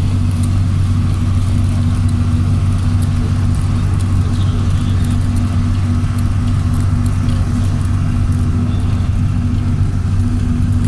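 Engine and road noise of a moving bus heard from inside the passenger cabin: a steady, unchanging low drone with a lower hum under it, and faint light ticks and rattles scattered over it.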